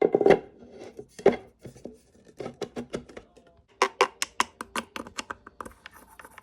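Hard plastic parts of an electric fan being handled and fitted together: a string of sharp clicks and knocks, with a quick run of clicks about four seconds in.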